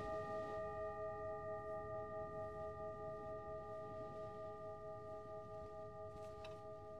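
Himalayan singing bowl ringing out after a strike, several overtones sounding together with a slow pulsing waver as the tone gradually fades.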